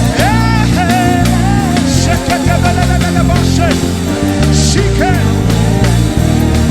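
Live worship band playing: a lead melody line with pitch bends and quick runs over steady low chords and drums.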